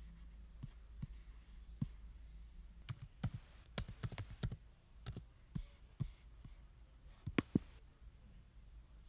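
Typing on a MacBook laptop keyboard: irregular key clicks, bunched in a quick run about three to four and a half seconds in, with a couple of sharper clicks a little past seven seconds.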